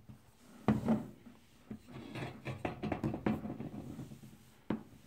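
Hand tools handled on a tabletop: a cast-iron C-clamp and a wooden-handled ball peen hammer. A sharp knock comes just under a second in, followed by a few seconds of small knocks and rubbing, and a single sharp click near the end.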